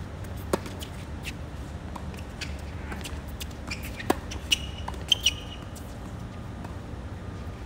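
Tennis rally on a hard court: sharp pops of rackets striking the ball and the ball bouncing, the loudest about four seconds in, with brief high squeaks of tennis shoes on the court in the second half.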